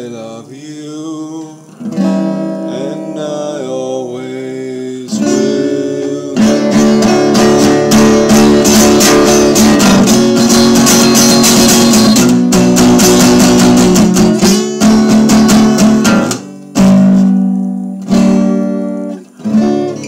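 Acoustic guitar being played: lighter picked notes at first, then loud, fast strumming from about six seconds in, and near the end a few hard chords that are stopped short.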